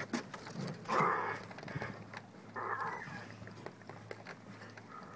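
Light clicks and taps of metal needle-nose pliers and a crab's legs against wooden dock boards, with two short breathy noises, the louder about a second in and the other near the middle.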